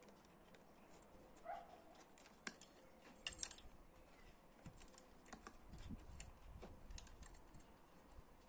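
Faint, scattered small clicks and taps of metal parts being handled on a model truck's chassis at the front wheel, with one short faint squeak about a second and a half in.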